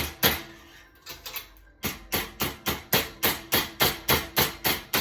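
Light hammer taps knocking parts of a dresser back into place. A few taps come first, then after a short pause a steady run of about four taps a second.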